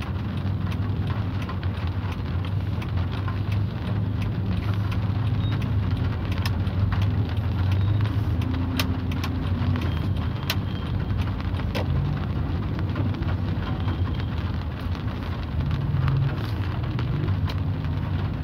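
Rain pattering on a car's windshield and roof, heard from inside the cabin as many small sharp ticks, over the steady low hum of the car running in slow traffic.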